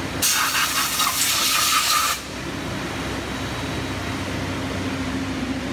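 A loud hiss for about two seconds, then a steady hum of running machinery with an even low tone.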